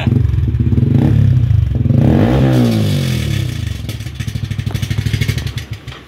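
Yamaha Sniper 155's single-cylinder four-stroke engine running through an aftermarket MVR1 adjustable muffler. It is revved once about two seconds in and falls back, then the sound drops away near the end.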